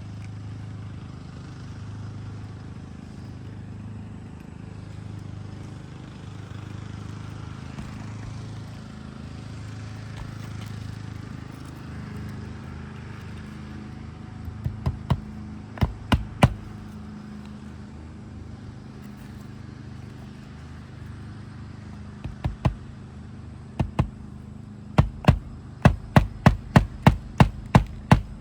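Hammer strikes driving nails into a roof shingle: a few scattered blows about halfway through, then a steady run of two or three blows a second near the end. A steady low hum underlies it.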